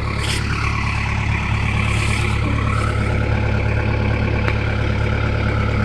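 Vehicle engine running steadily with a constant low drone and no change in speed.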